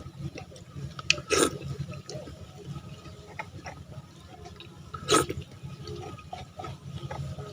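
Wet, dripping mouth and hand sounds of young coconut being eaten or drunk: many small clicks, with two louder wet bursts about a second and a half in and again about five seconds in. A steady low hum runs underneath.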